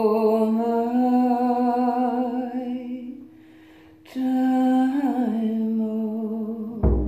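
A woman singing long held notes without words, in a slow wavering chant-like voice, breaking off for a moment about three seconds in and then going on. Near the end a single strike on a large frame drum with a padded beater booms and rings out.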